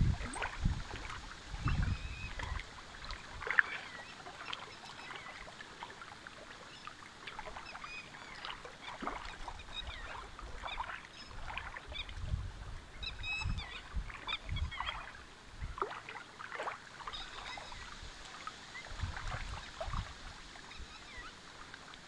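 Small waves lapping on a stony shore, with irregular low gusts of wind on the microphone and scattered short bird chirps.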